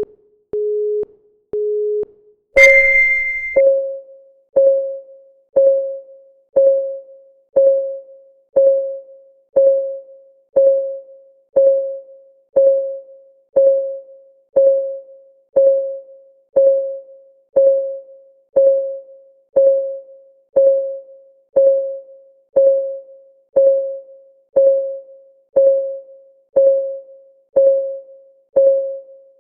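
A countdown timer's electronic clock-ticking sound. Three short beeps a second apart, then a louder, higher beep about two and a half seconds in, then a steady tick once a second.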